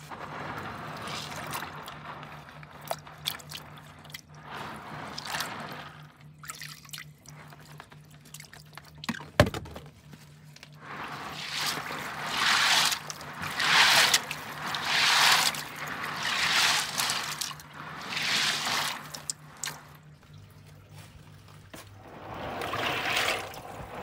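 Water splashing and dripping in a plastic pond-filter tub as a hand lifts the net bags of filter media and then swishes through the murky water to rinse out sludge. From about halfway, the swishes come in regular surges about once a second. A single sharp knock about nine seconds in is the loudest moment, and a steady low hum runs underneath.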